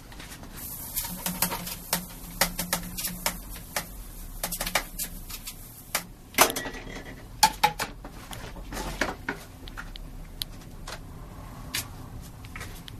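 Scattered clicks, knocks and light rattles of the pipe parts of a homemade spud cannon being handled and readied for firing, some knocks sharper than the rest.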